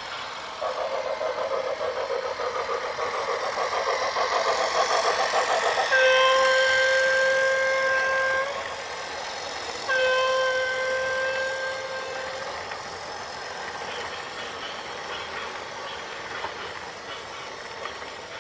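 A vehicle horn sounds two long steady blasts, about six and ten seconds in, each lasting around two and a half seconds. Before them a rapid pulsing mechanical rattle grows steadily louder.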